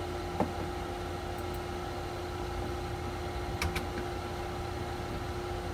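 Mouse clicks over a steady low hum with a faint steady tone: a light click about half a second in, then a sharper double click about three and a half seconds in as the Install button in Software Update is clicked.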